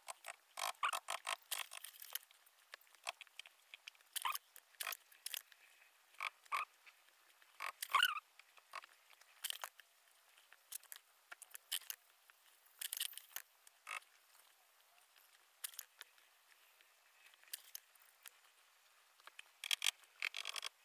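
Sped-up timelapse handling noise: quick, irregular rustles and clicks of a sheet of gold transfer foil and a pen being worked over a paper print, with a louder squeak about eight seconds in.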